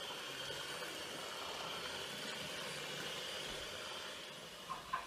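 Elif electric hand mixer running steadily, its beaters whipping eggs and sugar in a stainless steel bowl until the mix turns pale. The motor fades out about four seconds in, followed by a couple of light knocks.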